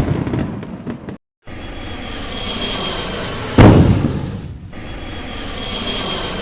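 Monster-film destruction sound effects: a clatter of crashing impacts, a short break, then a steady rumble with a loud explosion about three and a half seconds in.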